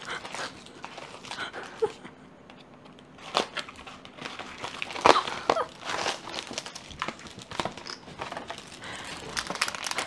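Small plastic packets crinkling and rustling as they are handled and shaken out of a box onto a table, in irregular rustles, one of the loudest about five seconds in.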